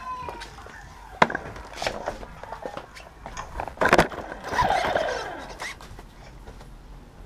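Handling noise around the camera-carrying RC buggy: scattered clicks and knocks as the front door is opened and the car is carried out, a sharp knock about four seconds in as it is set down on the concrete path, then a squeak falling in pitch.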